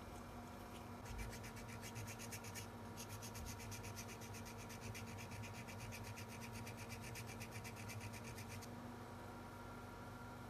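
A small hand tool filing a thin white plastic part in rapid, short, even strokes, with a brief pause about three seconds in; the strokes stop a couple of seconds before the end.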